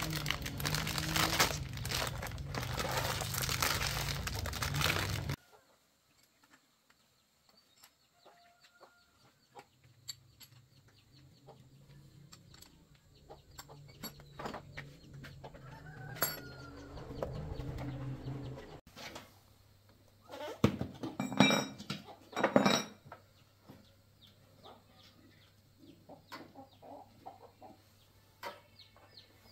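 Chickens clucking. A loud, dense rasping noise fills the first five seconds and cuts off abruptly; after that come scattered small clicks, with a cluster of loud sharp bursts about three-quarters of the way through.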